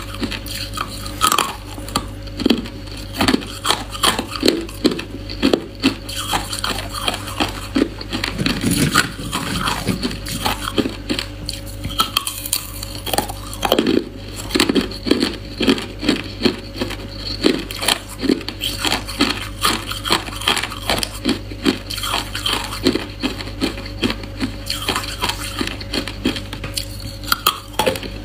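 Hard clear ice being bitten and crunched between the teeth: a rapid, uneven run of sharp cracks and crunches, several a second, over a steady low hum.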